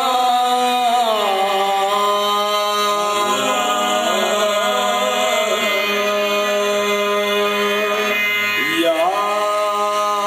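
Qawwali singing: a male qawwal holds long, ornamented vocal lines into a microphone over the steady sustained tones of a harmonium, the voice swooping down and back up near the end.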